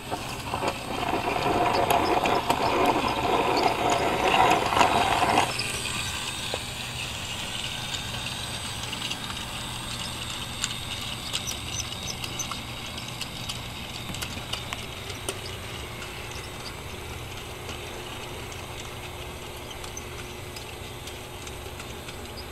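Model trains and a toy Walt Disney World monorail running on a layout: small electric motors and wheels on track, with frequent light clicks. A louder rattling run over the first five seconds or so cuts off suddenly, leaving a quieter steady running sound.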